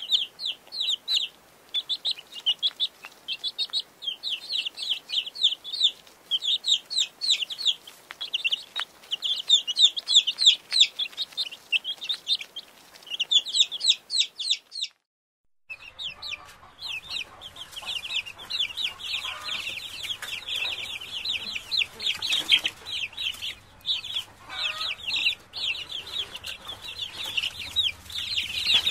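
Domestic chicks peeping: rapid runs of short, high calls, first in bursts from under a brooding hen, then, after a brief gap about halfway through, many chicks peeping almost without pause. A hen clucks low a couple of times in the second half.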